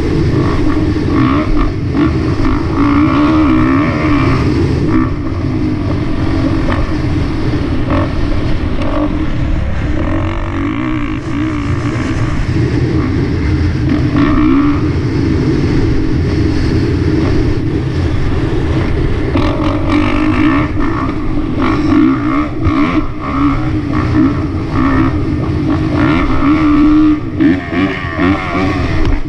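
450cc four-stroke motocross bike's single-cylinder engine running under load around the track, its revs rising and falling repeatedly with the throttle, over a heavy rush of wind on the microphone.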